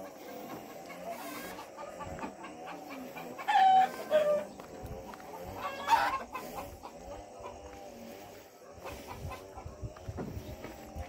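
A rooster crowing: one loud call about three and a half seconds in and a shorter one at about six seconds.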